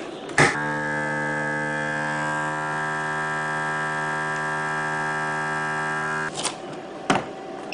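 Countertop vacuum sealer's pump running with a steady electric hum for about six seconds as it draws air from a bag of cut sweet corn, starting and stopping with a click.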